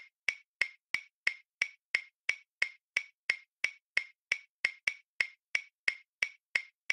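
Clock ticking: sharp, identical ticks at an even pace of about three a second.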